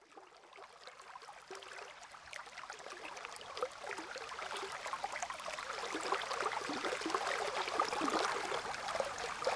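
Running water babbling and splashing, fading in gradually from near silence.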